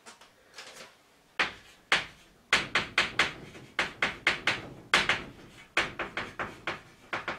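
Chalk tapping and scraping on a blackboard as characters are written: a run of sharp clicks in quick clusters, starting about a second and a half in.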